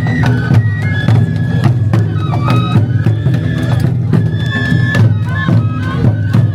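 Lion-dance festival music: a Japanese bamboo flute plays a melody of held, stepping notes over rapid drum and percussion beats.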